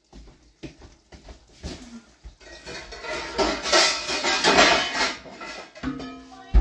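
Kitchen handling noise: dishes and utensils clinking and knocking, then a louder stretch of clattering and rustling about three to five seconds in, and a short pitched squeak or hum near the end.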